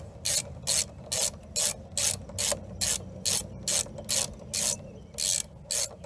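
Half-inch drive ratchet wrench clicking in quick even strokes, about two and a half a second, as it runs in a mounting bolt of a motorcycle rear brake master cylinder.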